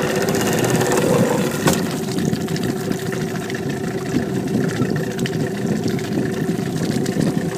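Motorboat engine running steadily, with churning water noise beneath it and one sharp knock a little under two seconds in.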